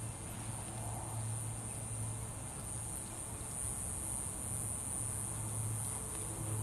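Soft hoofbeats of a Missouri Fox Trotter mare fox-trotting on grass, faint under a steady low hum and a steady high hiss.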